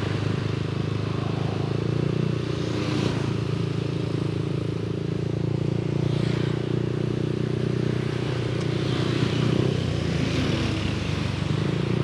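Yamaha NMAX 155 scooter's single-cylinder engine running steadily while riding in traffic, heard from the rider's helmet, with a few brief swells of rushing noise.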